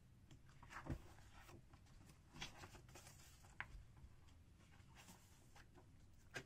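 Faint rustles and soft taps of paper as a large picture book is opened and its cover and first pages are turned, against near silence.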